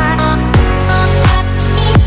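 Background music with a steady beat, a deep drum hit falling in pitch about every 0.7 seconds under sustained chords.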